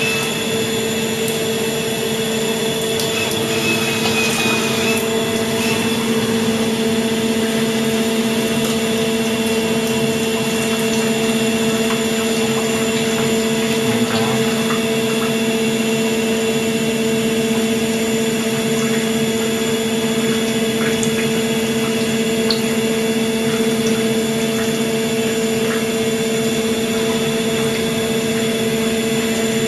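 1988 Mori Seiki MH50 CNC horizontal machining centre running, a steady machine hum made of several held tones over a rushing noise, with coolant pouring over the spindle area.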